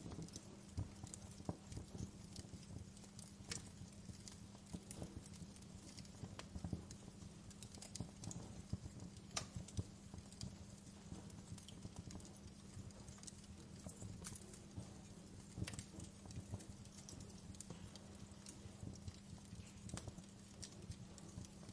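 Wood fire crackling in a fireplace: irregular small pops and snaps from the burning logs and embers, a few louder than the rest, over a steady low hum.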